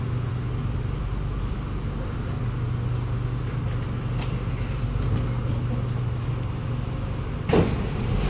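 Kawasaki Nippon Sharyo C751B metro train standing at the platform: a steady drone with a low hum that holds one pitch. About seven and a half seconds in, a sudden short burst of noise comes as the passenger doors open.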